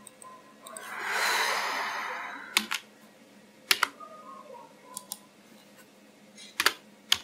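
A long breath out into the microphone, then sharp computer keyboard and mouse clicks, mostly in quick pairs, about once a second.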